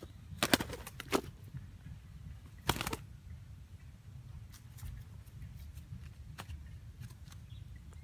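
A few sharp flutters and knocks, loudest in the first three seconds, then fainter ticks: a small bird just taken from a deadfall trap, beating its wings while held in the hand.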